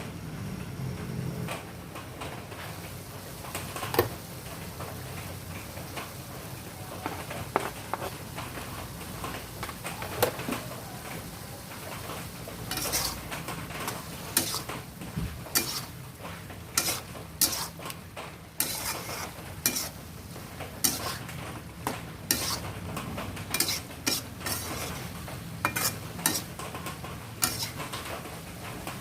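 A utensil stirring food in a pan, clinking and scraping against the metal, with a light sizzle underneath. The clinks come sparsely at first, then quickly and irregularly in the second half.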